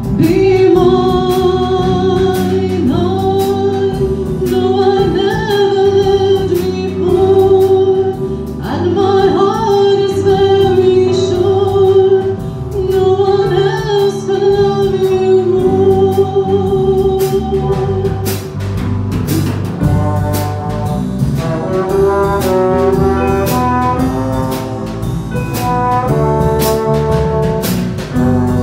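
A small band playing a slow song live on electric keyboard, drum kit and trombone, with a sustained, sliding melody line over steady cymbal and drum strokes.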